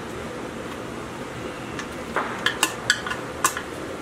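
A handful of light metallic clinks and taps, about six within a second and a half starting around two seconds in, as a screwdriver and small parts knock against the metal tank on top of a small diesel engine being reassembled. A steady hiss runs underneath.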